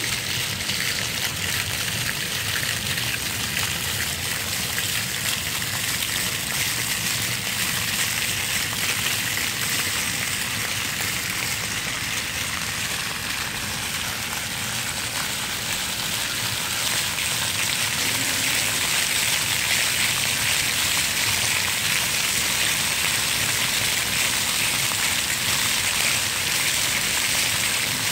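Rows of ground-nozzle spray fountain jets shooting water up and splashing back onto wet paving: a steady hiss and patter of falling water that grows a little louder a little past halfway through.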